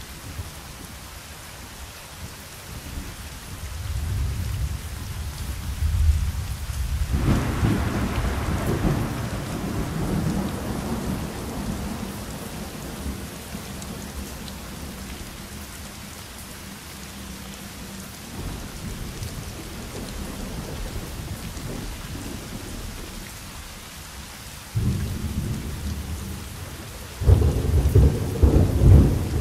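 Thunderstorm: steady rain with rolling thunder. A rumble builds a few seconds in, a sudden loud peal comes about seven seconds in and rolls away slowly, and two more sudden, louder rumbles come near the end.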